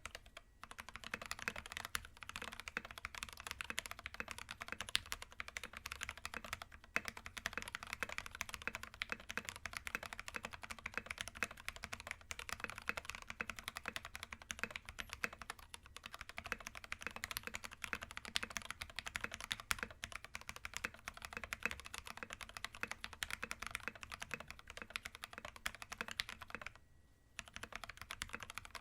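Continuous fast typing on a mechanical keyboard with lubed Gateron Yellow linear switches, an aluminium plate and MT3 PBT keycaps: a dense run of keystrokes, with a short pause near the end.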